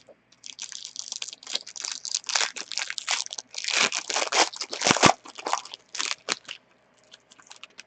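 A trading card pack's wrapper is torn open and crinkled in the hands for about six seconds, then fades to a few faint rustles and clicks as the cards come out.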